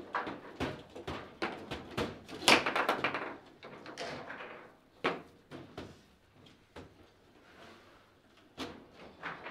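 Table football (foosball) table in play: irregular sharp clacks and knocks as the ball is struck by the players' figures and bangs off the table's walls, and the rods knock. A cluster of loud hits comes about two and a half seconds in, and the knocks grow sparser after about six seconds.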